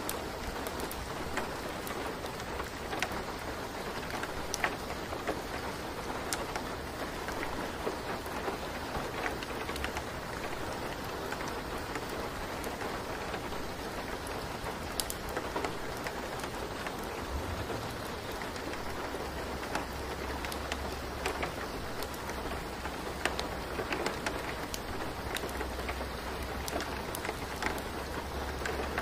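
Steady rain-like hiss with scattered sharp drop ticks and a low rumble underneath that grows louder in the second half; a masking sound track of the kind laid over the affirmations of a subliminal.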